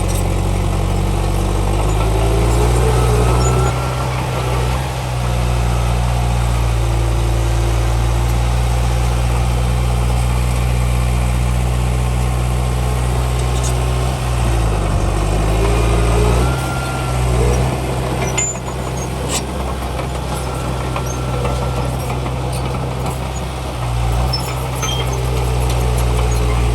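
Heavy diesel engine of earthmoving machinery running under changing load, its pitch stepping up and down several times, with faint squeals now and then.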